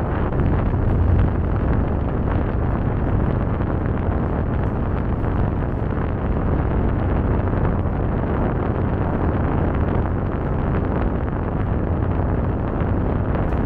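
Steady rumble of wind buffeting the microphone during a cable car ride, mixed with the cabin's running noise, heaviest in the low end.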